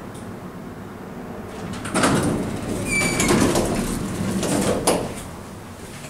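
A National hydraulic elevator arriving: about two seconds in, the doors slide open with a run of door noise. About a second later comes a single short ding from its bicycle-bell-like arrival bell, and a sharp click follows near the end.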